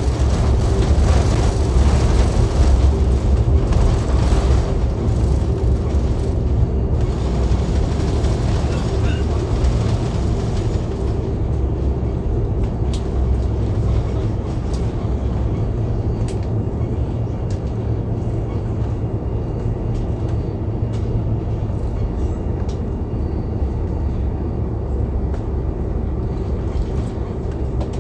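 Cabin noise of an Airbus A330-300 rolling out on the runway after touchdown: a loud, steady rumble. Over the first ten seconds or so the higher engine and air noise falls away, leaving a lower, slightly quieter rumble as the airliner slows.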